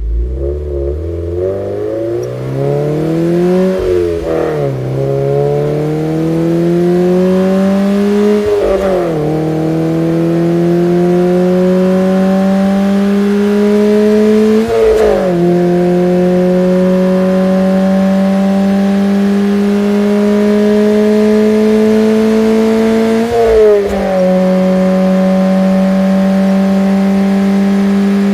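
Car engine accelerating from a start and shifting up through the gears. The engine note climbs steadily, then drops at each of four gear changes, about 4, 9, 15 and 23 seconds in. Each gear pulls longer and climbs more slowly than the one before.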